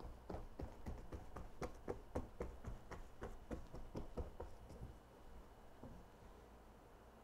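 Wide bristle brush stroking gesso onto a stretched canvas: a quick run of short brush strokes, about three or four a second, tapering off after about five seconds.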